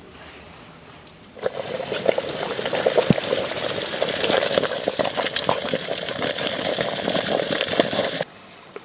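Stainless steel Kelly Kettle at the boil over a twig fire: water bubbling hard inside, with many crackles and pops from the fire burning in its chimney. It starts abruptly about a second and a half in and cuts off just before the end.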